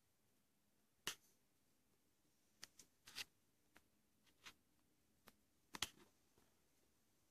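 Quiet room with about ten faint, sharp clicks and taps at irregular intervals, handling noise from fingers on a hand-held camera as it is moved about.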